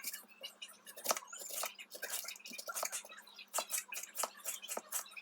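Kitchen knife chopping a red onion on a cutting board: a quick, uneven run of sharp taps, several a second.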